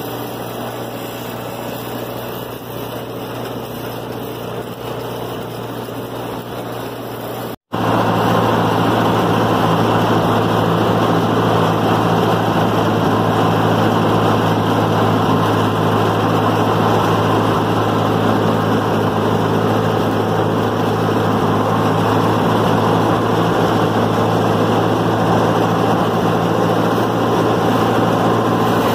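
Small tractor engine running steadily while pulling a manure spreader through the field. The sound cuts out for an instant about eight seconds in, then comes back louder and keeps running evenly.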